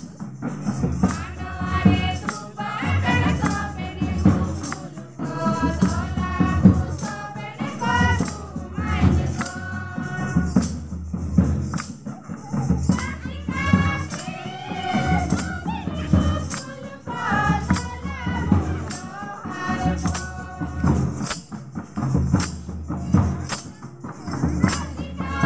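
Group singing with a steady drum beat and hand-held rattles shaken in time, accompanying a line dance.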